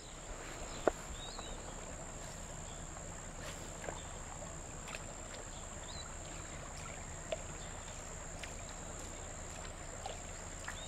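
Quiet riverside ambience: a faint steady low hum under a constant high thin whine, with a few short bird chirps and one sharp knock about a second in.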